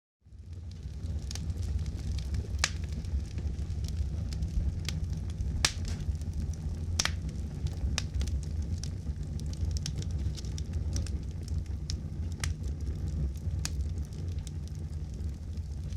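Campfire burning: a steady low rumble of flames with frequent sharp crackles and pops, a few of them much louder than the rest. It sets in abruptly right at the start.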